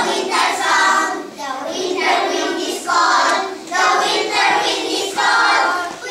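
A group of young children singing together in unison, in phrases about a second long.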